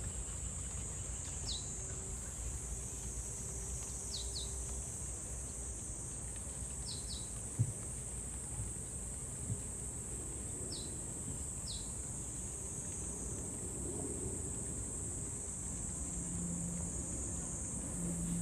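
Steady high-pitched drone of insects with a few short, high bird chirps, some in pairs, over a low outdoor rumble. One brief thump comes about halfway through.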